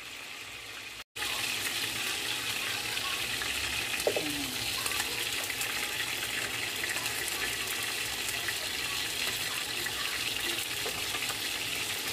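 Chicken pieces sizzling steadily as they fry in oil in a nonstick pan. The sound cuts out briefly about a second in and comes back a little louder. About four seconds in there is a short scrape of the spatula against the pan.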